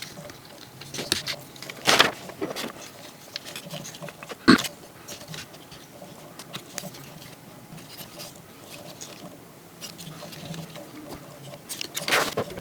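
Plastic Transformers action figure being handled, with scattered clicks and knocks of its plastic parts and joints and light rustling in between; the loudest clicks come about two seconds in, about four and a half seconds in, and near the end.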